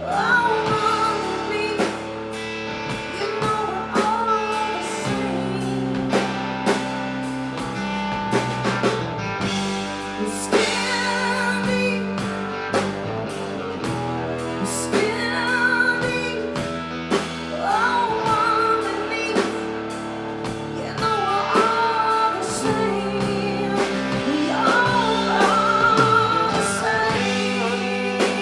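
Live blues band: a woman singing with vibrato over electric guitar, electric bass and drum kit.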